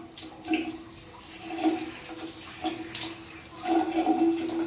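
Shower water running and spattering, with a few short low tones over it.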